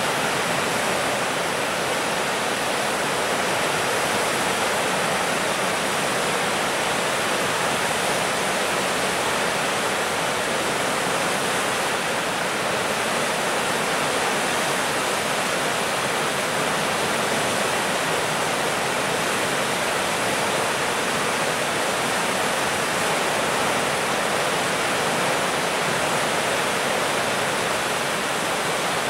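Floodwater of a swollen river rushing and churning around concrete bridge piers: a steady, unbroken rush of fast whitewater.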